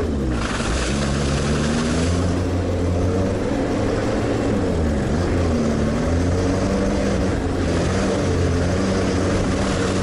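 Sherp all-terrain vehicle's diesel engine running under load as it drives over rough forest ground, its engine speed rising and falling; there is a brief burst of hiss near the start.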